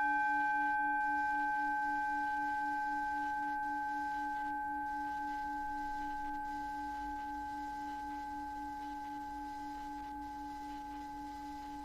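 A struck metal chime tone rings and slowly fades: one clear pitch with a few fainter higher overtones. Under it runs a steady lower drone tone that pulses gently.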